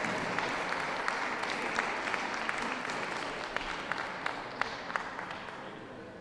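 Audience applauding, with single claps standing out from the general clapping, slowly dying away near the end.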